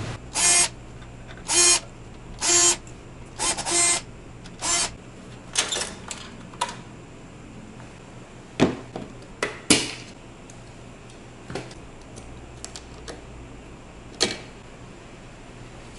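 Electric screwdriver whirring in five short bursts, backing out screws from a PC case. Then a scatter of sharp clicks and knocks as computer parts and a cardboard motherboard box are handled.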